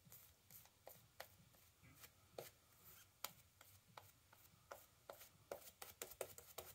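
Synthetic-knot shaving brush working lather over the face and neck: faint, irregular short scratchy ticks of the bristles against skin and stubble, coming faster near the end.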